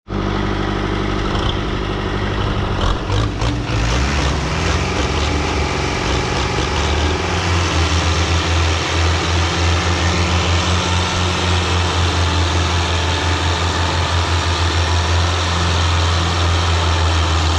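Tractor diesel engine working hard under heavy load. It revs up three to four seconds in, then holds a deep, pulsing throb as it strains to drag a loaded sugarcane trolley stuck in mud.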